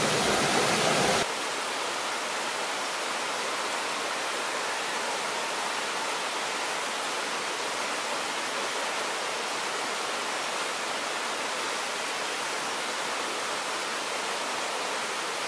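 Water of a shallow rocky stream running over stones: a steady rushing hiss. It is louder and fuller for about the first second, then a little softer and very even.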